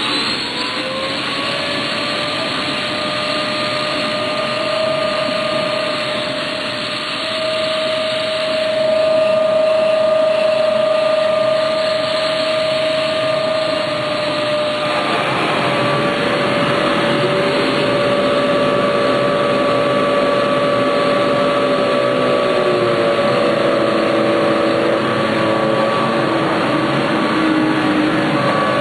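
Hoover Z400 bagless upright vacuum cleaner switched on, its motor spinning up with a rising whine like a jet engine starting up. It then runs steadily with a high whine over a rushing airflow hiss. About halfway through, more tones come in and shift in pitch.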